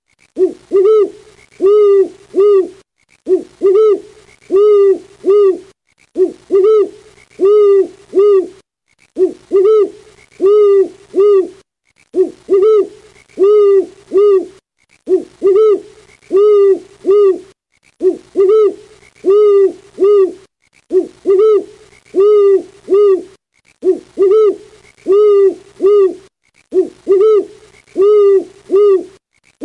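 Owl hooting in runs of rapid, short hoots, each run about two and a half seconds long. The runs repeat identically about every three seconds, like a looped recording.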